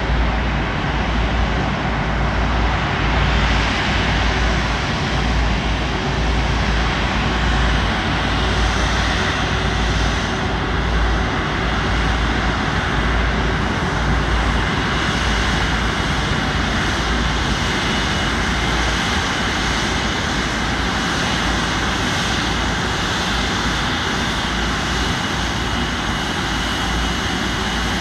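Jet engines of a twin-engine Airbus A330 freighter running at taxi power as it rolls past: a steady whine over a low rumble.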